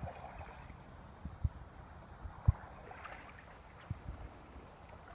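Wind buffeting the microphone in a few short, low thumps, over faint outdoor background noise.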